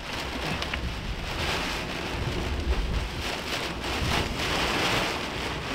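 Heavy wind-driven rain pounding a pickup truck, heard from inside the cab, in the damaging winds at the apex of a bow echo. A low rumble swells about halfway through.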